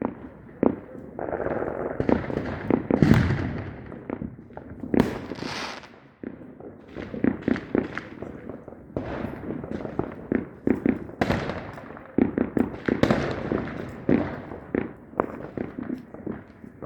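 Fireworks going off: a dense, uneven series of sharp bangs and crackles, with a brief hiss about five seconds in.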